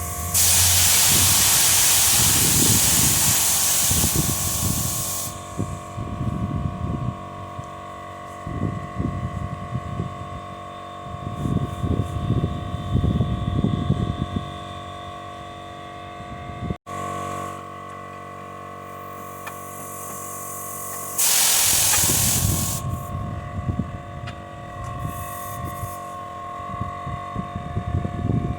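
Two bursts of loud, even hissing from a pressurised spray, the first about five seconds long from the start, the second under two seconds near the end. Between them come irregular knocks and clatter of repair work over a steady electrical hum.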